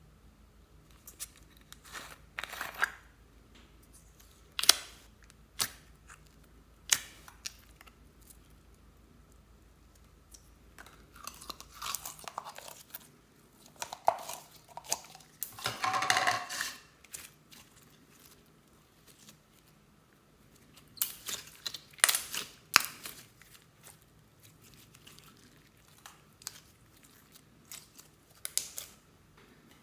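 Sharp plastic clicks and crackles as a slime tub is handled and opened. Then clear blue slime squelches and crackles in bursts as it is squeezed out of its tub and stretched by hand.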